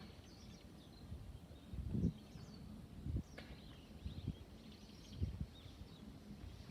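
Footsteps of someone walking, a soft thud about once a second, over faint, scattered chirps of small birds.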